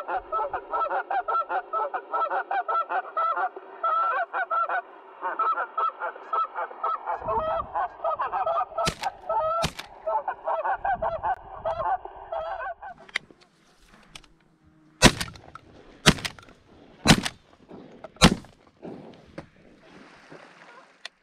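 A flock of geese honking in a dense chorus, with two shotgun shots about nine seconds in. The honking stops about thirteen seconds in, and four louder shotgun shots follow about a second apart.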